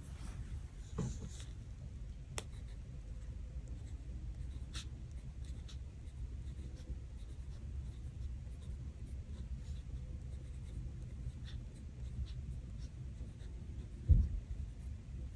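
Pen writing and drawing on a planner page: faint scratches and light ticks over a steady low hum, with one soft knock near the end, the loudest sound.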